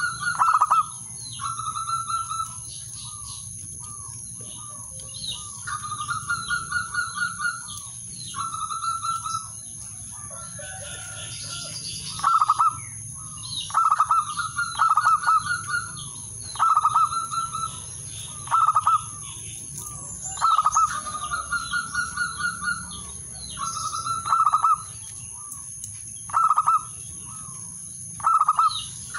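Male zebra dove (perkutut) singing its cooing song to call rivals: phrases of rapid staccato coos, repeated every second or two, with a short pause about ten seconds in.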